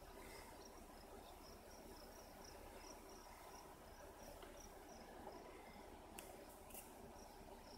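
Faint crickets chirping in a steady rhythm of a few chirps a second, with two short sharp clicks about half a second apart near the end.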